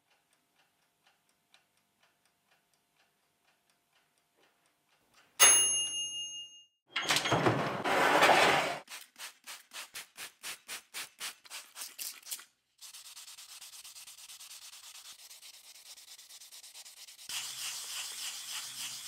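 Hand work on a small steel part: a sharp metallic clink that rings briefly, a loud scrape, then rhythmic rubbing strokes about four a second that fade away. A steady high hiss follows and grows louder near the end.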